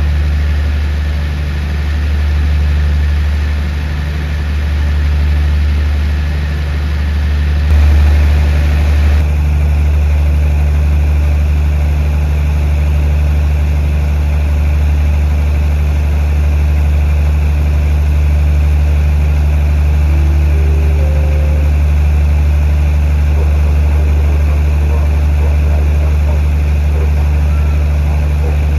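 Diesel engines of a standing passenger train idling, a steady deep hum that swells briefly about eight seconds in.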